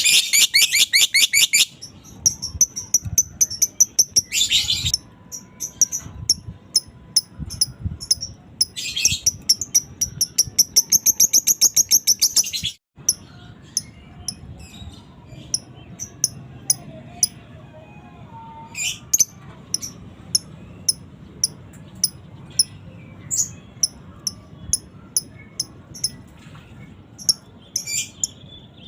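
Fighter lovebird chattering in long, fast, high-pitched trills (the 'ngekek' of an excited bird), broken by runs of single sharp chirps. The sound cuts out briefly about halfway through.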